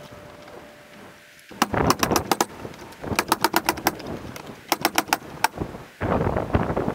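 Pneumatic nailer fastening lap siding boards, sped up: three quick runs of sharp shots, then a loud rush of noise near the end.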